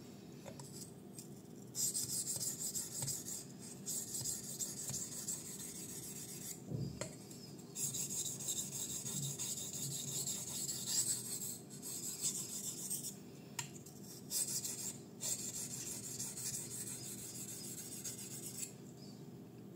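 Steel blade of a Kizer Fighter 154CM folding knife stroked back and forth across a Makita whetstone, a hissing scrape in three runs of about five seconds each with short pauses between them.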